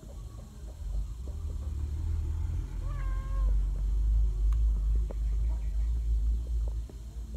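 A cat meows once, a short call about three seconds in. Under it runs a low rumble that grows louder through the middle and is louder than the meow.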